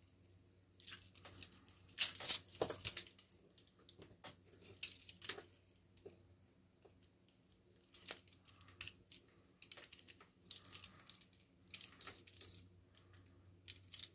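Several pairs of steel handcuffs and their chains clinking and rattling against each other on the wearer's wrists, in irregular bursts of sharp metallic clicks. The loudest burst comes about two seconds in, and more clinking follows in the second half.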